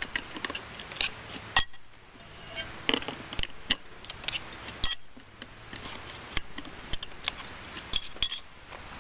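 Irregular metallic clinks and taps of tyre-mounting tools (tire irons and tire slips) against a spoked motorcycle wheel rim, several sharp knocks scattered throughout.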